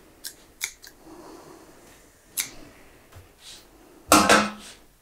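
Fabric being folded and smoothed on an ironing board, with soft rustling and a few light taps and clicks. A louder clatter comes about four seconds in, as something is knocked or set down on the board.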